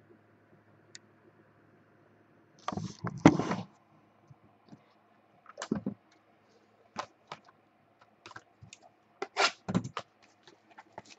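Irregular sharp clicks and taps from handling objects at a desk, with a brief rustle about three seconds in and another flurry of clicks near the end.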